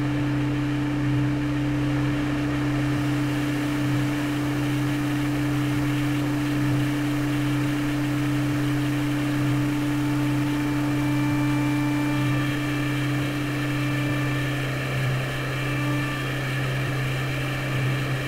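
Ambient guitar drone played live: low held notes with a slow, even pulse under a wash of noise, and higher sustained tones coming in about twelve seconds in.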